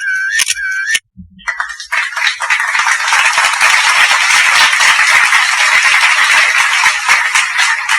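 A repeating squeaky chirp, about two a second, stops about a second in. After a short gap, a loud dense rattling clatter of many small clicks runs for about six seconds and thins out near the end.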